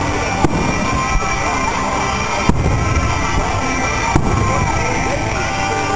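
Loud music playing, punctuated by the sharp bangs of aerial firework shells bursting, about four in the space of six seconds.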